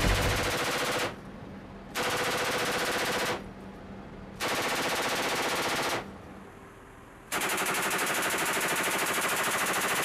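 Ramp-mounted 7.62 mm M240 machine gun firing four bursts of rapid automatic fire, the last one the longest, with the tiltrotor's steady drone heard between bursts.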